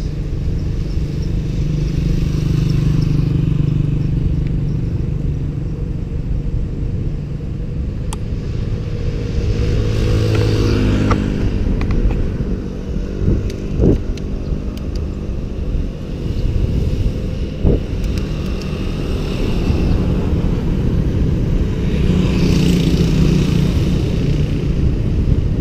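Wind buffeting a bicycle-mounted action camera's microphone, with road rumble from riding on asphalt. A motor vehicle's engine passes about ten seconds in, its pitch falling as it goes by, and a couple of short knocks come later.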